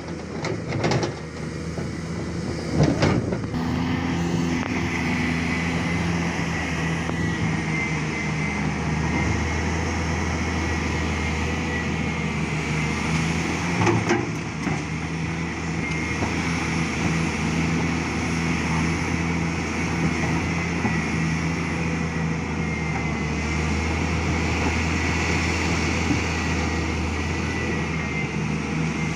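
Hyundai R800LC-9 excavator's diesel engine running steadily under load, its pitch and loudness swelling and easing as it works. A few sharp knocks in the first few seconds and another about halfway.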